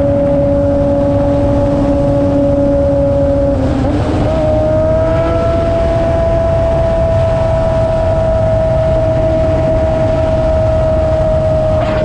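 Sportbike engine running at high revs while cruising, a steady engine note with a dense rush of wind over the microphone. About four seconds in the note wavers briefly, then settles at a slightly higher pitch.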